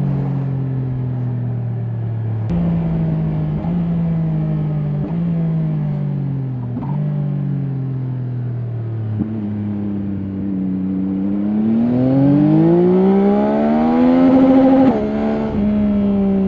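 2024 Yamaha Tracer 9 GT's three-cylinder engine through its stock exhaust: for the first half the revs sink with a few short steps up, like downshifts while slowing, then about two-thirds of the way through it accelerates, revs climbing steadily until a quick upshift drops them sharply near the end.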